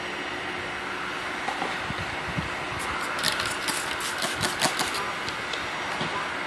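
Hand-held trigger spray bottle squirted rapidly, about ten quick sprays in two seconds, misting the tail light, over a steady background hum.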